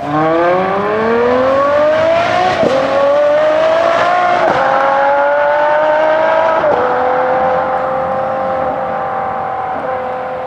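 Ferrari 599 GTO's V12 engine accelerating hard, its pitch climbing and dropping at three quick upshifts at about two and a half, four and a half and six and a half seconds in. After that it holds a steady, slowly falling note and fades slightly near the end.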